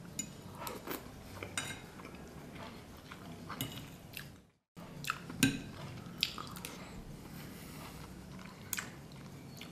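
A man eating close to the microphone: biting and chewing food, with scattered sharp clicks. There is a brief cut to silence about four and a half seconds in.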